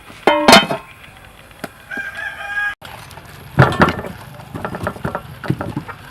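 A rooster crowing, with a long held note about two seconds in. After a short break, a run of short knocks and clatter.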